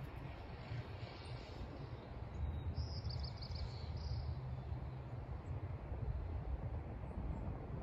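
Outdoor ambience: a steady low rumble, with a short run of rapid high bird chirps about three seconds in.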